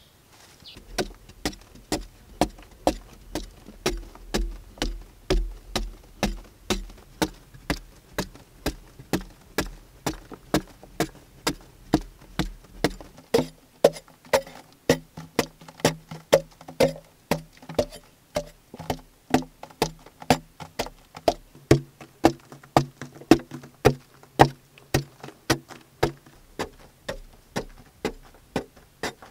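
A small hand digging tool striking and chipping into the hard earth of a tunnel wall, a steady run of about two strikes a second with a low hum underneath.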